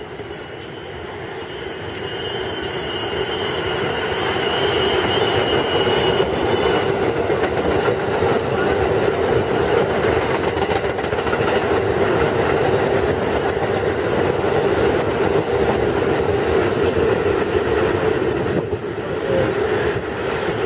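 Siemens R160B subway train approaching and running past on the express track, its wheels rumbling on the rails and growing louder over the first few seconds, then holding steady as the cars go by. A thin high whine sounds over the first several seconds and fades out.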